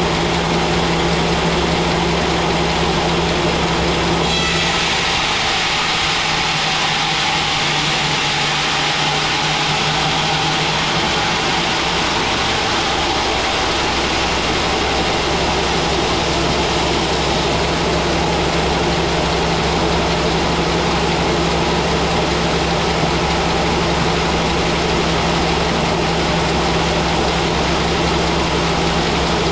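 Large vertical band saw running, its blade entering a thick mahogany log about four seconds in and then cutting steadily: a hiss of the blade through the wood over the machine's steady drone.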